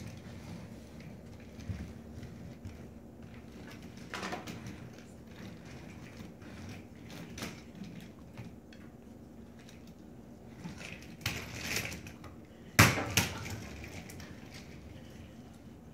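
Lightweight plastic toy stroller rolling and rattling on a hardwood floor, with scattered light knocks, and a loud clatter followed by a second hit about thirteen seconds in as the stroller is knocked over and the doll falls out.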